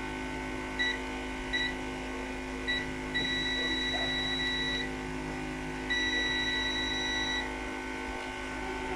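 Multimeter continuity buzzer beeping as the probes touch points on a TV circuit board: three short beeps, then two long beeps of about a second and a half each. The long, unbroken beeps show continuity across the points probed, the sign of the short circuit being traced.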